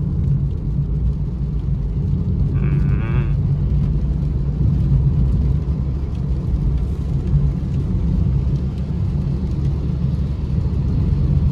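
Steady low rumble of a small car's engine and tyres on a wet road, heard from inside the cabin.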